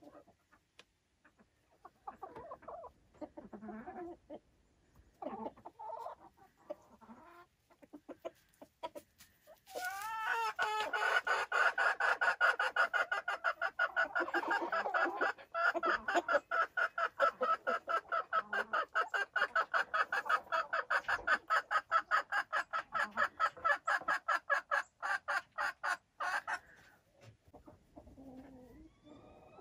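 Silkie chickens clucking: a few scattered short clucks, then about ten seconds in a long run of rapid, evenly paced clucks lasting about sixteen seconds, which stops abruptly near the end.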